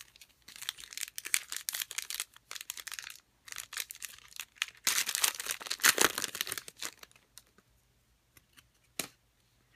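Plastic wrapper of a trading card pack crinkling in the hands, then torn open, the tearing loudest about five to seven seconds in. The cards slide out quietly, with one sharp click near the end.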